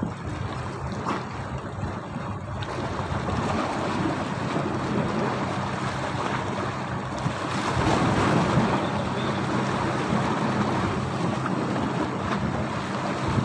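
Strong wind buffeting the microphone over waves slapping around a small fishing boat, with a low steady hum underneath.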